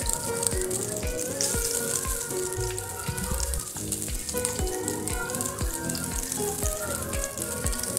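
Hot oil sizzling steadily in a wok as battered food deep-fries, with background music with a steady beat playing over it.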